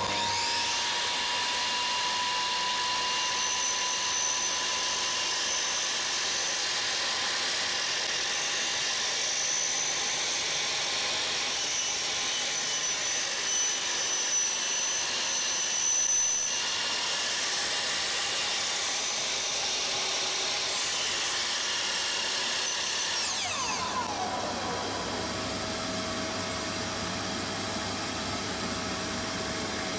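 Makita slide compound miter saw running at speed as its blade is brought down for a first test cut through a newly fitted wooden zero-clearance insert. About 23 seconds in the saw is switched off and the blade winds down with a falling whine, and a steady machine hum carries on.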